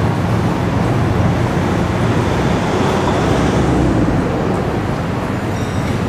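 Steady road traffic from cars and vans passing on a multi-lane city street, a continuous noise of tyres and engines that swells briefly about three to four seconds in as a vehicle goes by.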